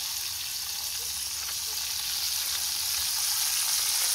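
Janga (river shrimp) sizzling as they fry in hot bubbling oil in a frying pan, a steady hiss that grows a little louder toward the end.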